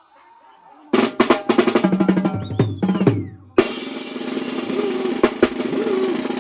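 Drums played: after a near-silent first second, a quick run of snare and bass drum strikes, then, just past halfway, a denser, steadier passage with more drum hits over it.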